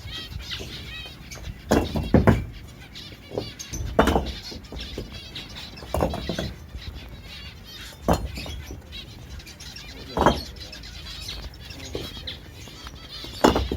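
Many small cage birds chirping at once, a continuous busy twittering, with a louder low thump or knock every two seconds or so.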